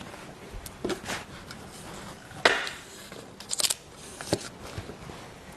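Close-miked eating of sweets: a handful of separate crunchy bites and clicks, the loudest about two and a half seconds in.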